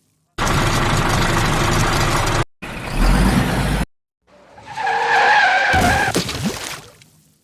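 Several short vehicle-engine sound clips that start and stop abruptly with silent gaps between them, the last one with a wavering whine.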